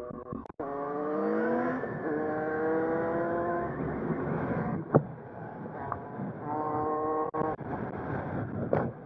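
Motorcycle engine accelerating hard: its pitch climbs, drops at a gear change about two seconds in and holds, then climbs again near seven seconds. A few sharp clicks break in along the way.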